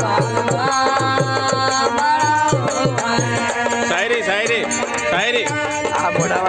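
Live Indian folk music: a harmonium playing a melody over a steady hand-drum rhythm.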